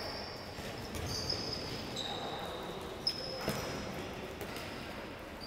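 Indoor handball game in a large sports hall: sneakers squeaking on the court floor in short high squeals, with the ball bouncing a couple of times about three seconds in, over faint distant voices.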